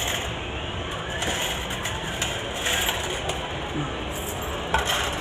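Steady background din of a claw-machine arcade: a constant machine hum with faint distant voices and a few light clicks.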